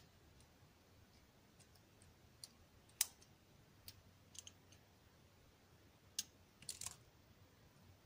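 Faint, scattered metallic clicks and ticks of a flag-type dimple pick working the pins inside a Yale Superior dimple lock cylinder under light tension. The loudest click comes about three seconds in, with a quick cluster of them near the end.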